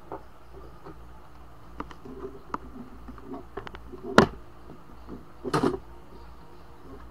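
Handling noises as a laptop motherboard and oscilloscope probe are moved around: scattered light clicks and taps, a sharp knock about four seconds in, which is the loudest sound, and a brief scraping rustle about a second and a half later.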